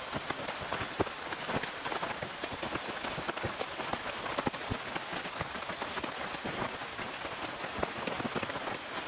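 Rain falling on a tent: a steady hiss of rainfall with many close, irregular drop hits on the fabric.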